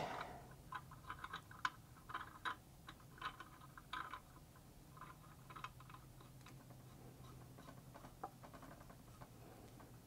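Faint scattered clicks and light metallic taps from a pressure switch being threaded by hand into a brass tee fitting, with wires and crimp connectors handled alongside; the clicks are thickest in the first six seconds, over a steady low hum.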